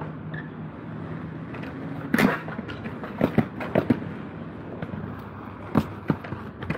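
Aggressive inline skates knocking against a concrete ledge and skatepark ground. There is one loud clack about two seconds in, a quick run of sharper clacks and knocks over the next two seconds, and two more near the end.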